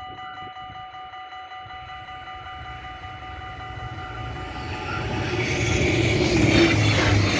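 Dutch level-crossing bells ringing with a fast, steady repeat while a GTW diesel multiple unit approaches. Its running noise rises from about three seconds in and becomes the loudest sound near the end.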